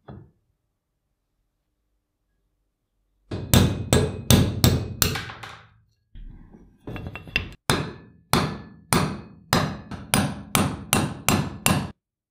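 Hammer blows on a steel punch, driving a pin or shaft out of the cast-iron frame of an old saw tooth setter during disassembly. The sharp, ringing strikes start about three seconds in as a quick flurry, pause briefly, then go on steadily at about two a second.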